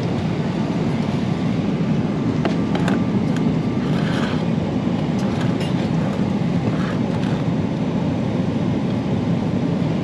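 Airliner cabin noise in flight: a steady low rush of engines and airflow, with a few faint clicks about three seconds in.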